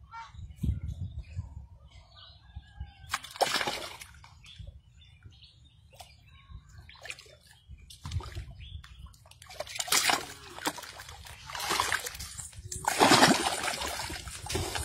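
Liquid splashing and sloshing as a person bathes, in several irregular splashes, the loudest near the end.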